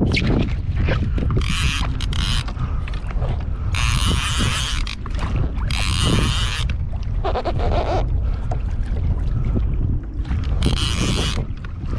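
Wind buffeting an action camera's microphone on a kayak at sea: a constant low rumble, broken by four hissy bursts of about a second each.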